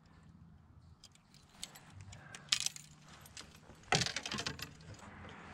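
Faint metallic clinks and rattles of fishing tackle being handled, with one sharp click about two and a half seconds in and a quick jingling cluster of clicks about four seconds in, the loudest moment.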